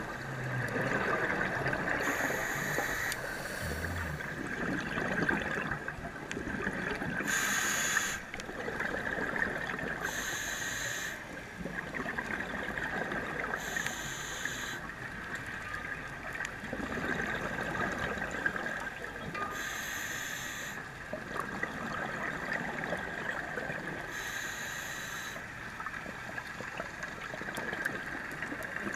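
Scuba diver breathing through a regulator underwater: about six bursts of exhaled bubbles rushing past, every few seconds, with a steady thin whine beneath.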